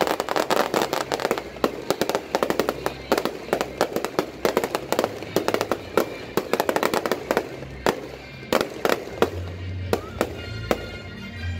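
Fireworks display: aerial shells bursting in a fast, dense crackle of bangs and pops, thinning to scattered bangs over the last few seconds.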